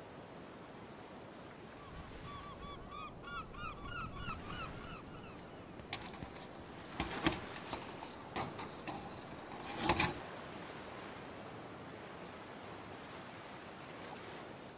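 Steady surf and sea ambience throughout. About two seconds in comes a flurry of short repeated bird calls lasting about three seconds. Later there are several sharp knocks and thumps, the loudest about ten seconds in.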